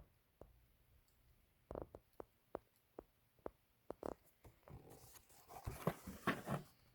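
Scattered light clicks and taps, then a spell of rustling and scraping about five seconds in: hands handling garage door opener belts.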